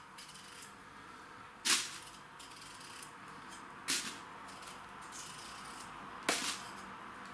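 Kitchen knife peeling a raw potato by hand: three louder crisp cutting strokes about two seconds apart, with fainter small scrapes between them.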